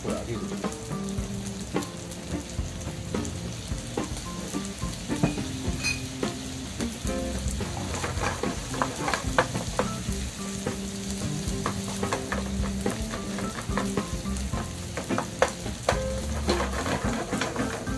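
Fried rice sizzling in a hot non-stick (Teflon) frying pan, with a wooden spatula scraping and knocking against the pan as the rice is stirred and tossed.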